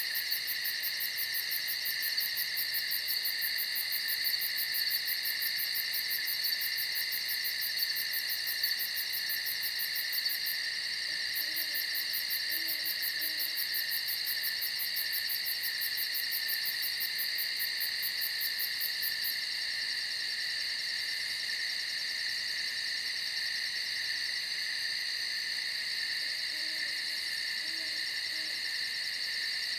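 A steady insect chorus sings in several high pitched bands, one of them a fast pulsing trill that stops about two thirds of the way in. Faint owl hoots come twice, about a third of the way in and again near the end.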